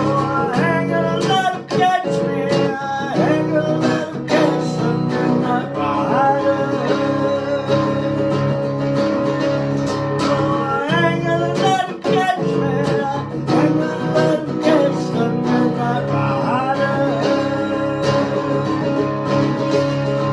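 Guitar strummed and picked through a song, tuned down a half step, with a steady rhythm and some bending notes over it.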